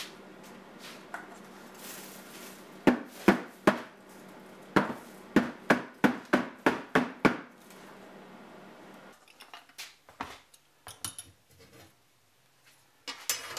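Metal chip tray knocked against the rim of a plastic bin to shake out swarf: three sharp knocks, then about eight more in quick succession, roughly two a second. Later come lighter metallic clinks of a steel strip being handled on a bench.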